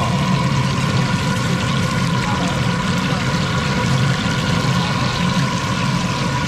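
Loud, steady rushing noise with a low hum underneath and a few faint steady tones, running without a break.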